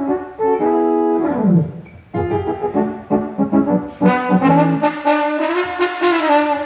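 Brass-toned instrumental notes played during a band's sound check. Held notes end in a falling slide about a second and a half in, and fuller, layered notes follow from about four seconds in.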